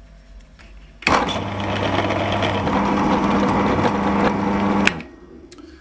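Pillar drill running, its twist bit boring a 5 mm hole through the centre of an RC beadlock wheel hub to open it out from 4 mm. The steady drilling sound starts suddenly about a second in and stops just before five seconds.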